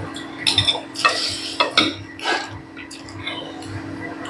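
Eating utensil scraping and clinking against a dish in a quick cluster of sharp strokes during the first half, over a steady hum.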